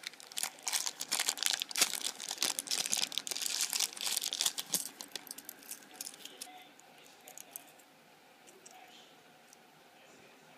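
A wrapper being crinkled and torn open by hand, a dense run of crackling for about six seconds that then thins to a few scattered crackles.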